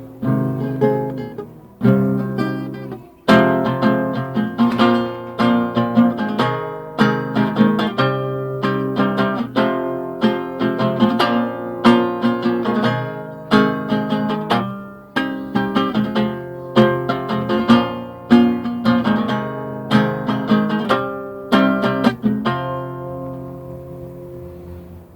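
Solo acoustic guitar playing a slow instrumental melody in plucked and strummed chords, with a brief pause about three seconds in. The last chord is left to ring and fade away near the end.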